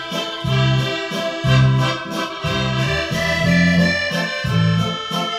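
Instrumental background music: held tones over a bass note that sounds about once a second.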